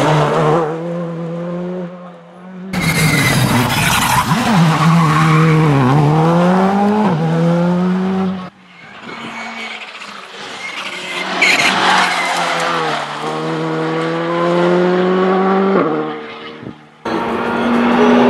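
Skoda Fabia R5 rally car's turbocharged four-cylinder engine revving hard as the car passes on a tarmac stage. The pitch climbs, drops sharply on gear changes and braking, and climbs again. Several separate passes are cut together, with abrupt jumps about three seconds in, around eight seconds in, and near the end.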